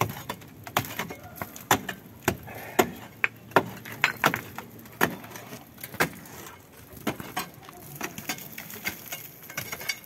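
Metal hand tool striking and chipping at a hollow concrete-block wall, breaking into it, in irregular sharp knocks about one or two a second, with a short lull past the middle.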